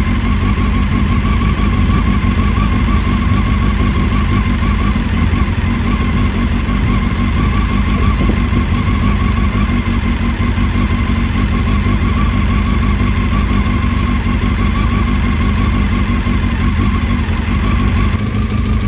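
Honda CBF600's inline-four engine idling steadily, run for a combustion leak test of its cooling system, which has shown the head gasket blown.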